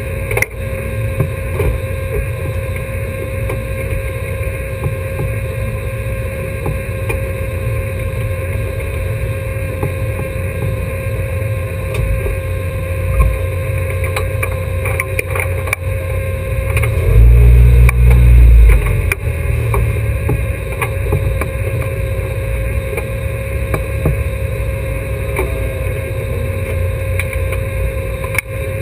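Historic Alfa Romeo race car's engine idling steadily, heard from inside the cabin, with a louder low rumble lasting about two seconds just past the middle. Scattered knocks and rubbing come from someone leaning in to adjust the driver's harness beside the camera.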